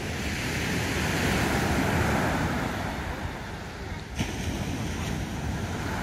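Sea surf breaking and washing up a sandy beach, swelling and easing, with wind rumbling on the microphone. A single sharp click comes just after four seconds in.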